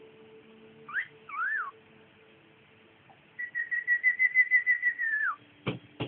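Cockatiel whistling: a quick rising note and a short rise-and-fall note, then a long wavering whistle held for about two seconds that drops in pitch at its end. A sharp knock follows near the end.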